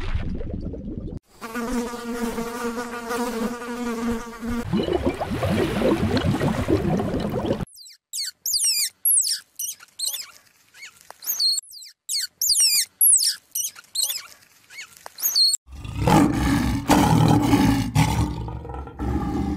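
A string of separate animal sounds: a buzz for a few seconds near the start, then a run of short, high, falling chirps from ground squirrels, then a lioness growling low near the end.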